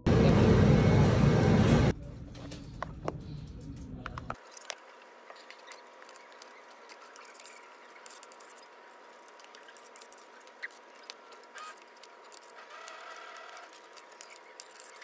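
Car cabin road noise for about two seconds, then it cuts off suddenly. After that come scattered small clicks and scrapes of a metal spoon in a stainless steel lunch box over quiet room tone.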